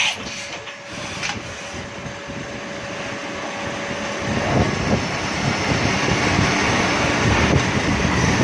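Steady machine hum with a faint high tone, turning louder and rougher about halfway through.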